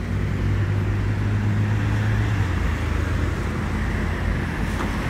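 Road traffic on a multi-lane city road: motor vehicles passing, with a steady low engine hum that shifts about halfway through.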